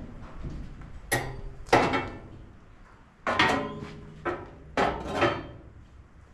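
The tipping cargo bed of a John Deere AMT 600 utility vehicle being lowered by hand: a series of clunks and rattles, about six knocks over several seconds, some with a short metallic ring.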